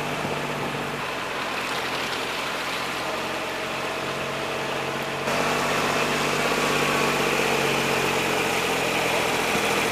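Engine of a small off-road utility vehicle running steadily as it drives, heard from aboard; it gets louder about five seconds in.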